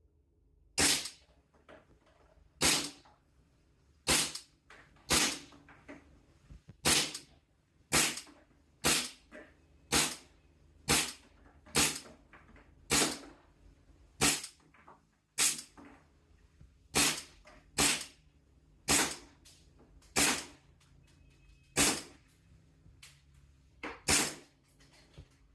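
Tokyo Marui M&P9L gas blowback airsoft pistol being fired at a target, about twenty single sharp shots at roughly one a second, each with the slide's crack as it cycles.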